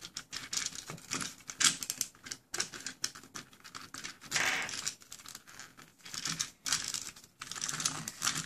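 Small plastic Chubby Puppies toy pieces being handled close by: an irregular run of light plastic clicks and rattles, with a brief rustle about four and a half seconds in.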